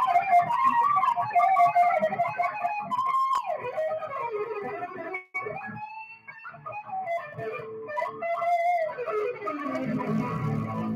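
Electric guitar played live, a lead line of bending and sliding notes with a steep downward slide about three seconds in. Near the end a bass guitar comes in low underneath.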